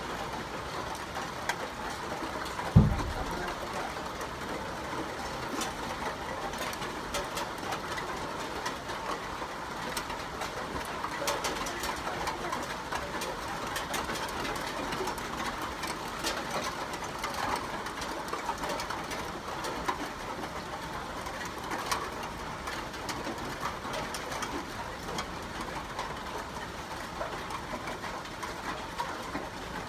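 Steady rain falling, an even patter with many small drop ticks. A single short low thump about three seconds in.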